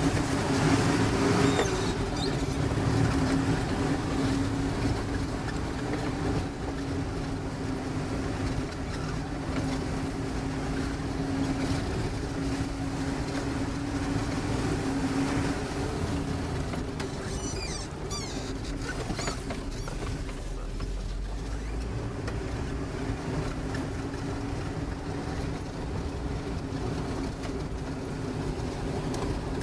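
Engine of an off-road vehicle running steadily as it drives along a rough dirt track, heard from inside the cab, with a few brief clatters about a second in and again past the middle.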